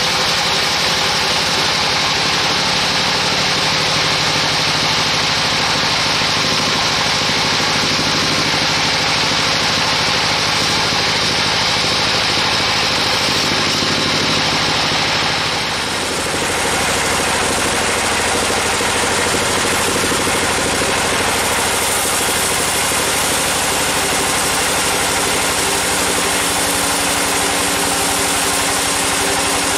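Band sawmill running steadily, its blade sawing lengthwise through a large Agathis (damar) log. The noise dips briefly about halfway through, then goes on with more hiss in it.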